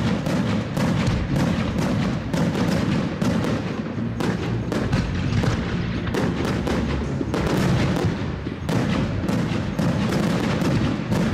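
Aerial firework shells bursting in quick succession, about two sharp bangs a second over a continuous low rumble, with music underneath.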